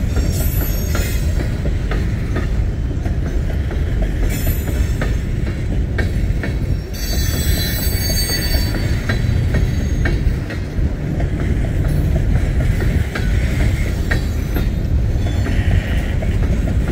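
Empty open-top coal cars of a long Union Pacific freight train rolling past: a steady heavy rumble and rattle, scattered sharp wheel clicks, and a few brief high squeals from the wheels, the longest about seven seconds in.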